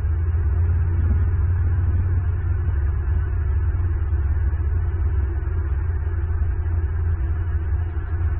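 A loud, steady low rumble that runs evenly, with nothing sudden in it.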